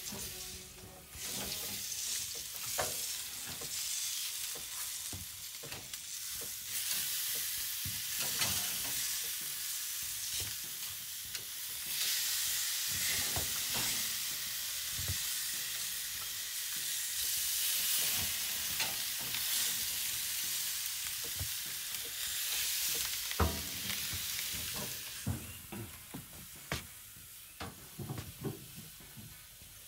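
Ribeye steaks sizzling on a hot grill grate: a steady hiss broken by scattered clicks and knocks of a metal tool on the grate. Near the end a sharp knock comes, and the sizzle drops to a quieter hiss.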